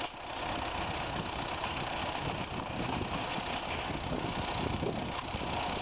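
Tractor engine running steadily, powering a cabbage-harvesting conveyor.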